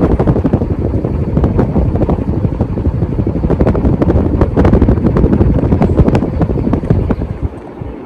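Air thrown by the spinning blades of a Casablanca Halogen Star ceiling fan buffeting the microphone held close beneath it: a loud, continuous rumbling wind noise with crackles, easing a little near the end.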